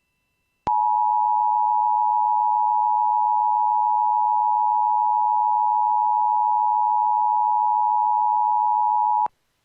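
Emergency Alert System attention signal: two steady tones sounding together (853 and 960 Hz), starting abruptly under a second in and cutting off abruptly after about eight and a half seconds, announcing the emergency message that follows.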